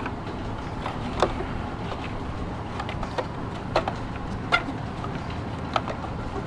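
Scattered light clicks and knocks of parts being handled, about half a dozen, some with a short ring, over a steady low hum.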